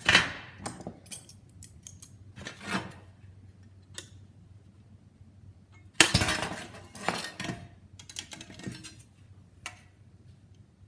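Metal sheet-metal parts and cleco fasteners clinking and clattering as they are handled and fitted together, in a run of separate knocks; the loudest clatter comes about six seconds in.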